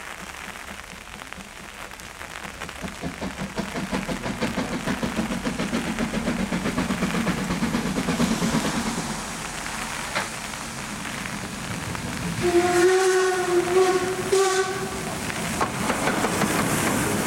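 Steam locomotive 99 7232-4, a Harz metre-gauge 2-10-2 tank engine, chuffing rhythmically as it approaches, louder as it nears. About two-thirds of the way in its steam whistle sounds one blast of roughly two and a half seconds, then steam hisses from the cylinder drain cocks as the engine passes close by.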